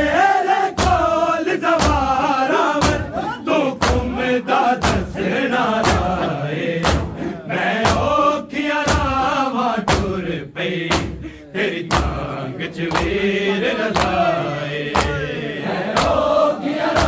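Shia noha chanted by a group of male voices, with the mourners' hand-on-chest matam beating a steady rhythm of about one strike a second.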